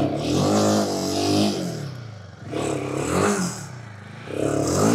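Royal Enfield Himalayan 450's 452 cc single-cylinder engine revved hard in three bursts, pitch rising and falling each time. The rear wheel spins in loose dirt without grip while the bike sits stuck in a pit.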